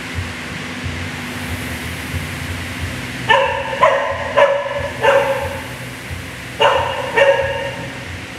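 A dog barking: four quick barks about half a second apart starting about three seconds in, then two more near the end.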